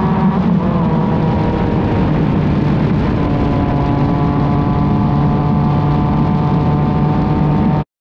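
Yamaha XSR900's three-cylinder engine running through an Arrow aftermarket exhaust at a steady pace on the move, heard close to the silencer. It cuts off abruptly near the end.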